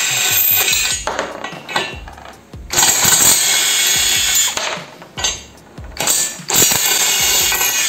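Bull BL127 20 V brushless cordless impact wrench running in three bursts of one to two seconds each, with short gaps between, driving a nut along a bolt through a 19 mm socket.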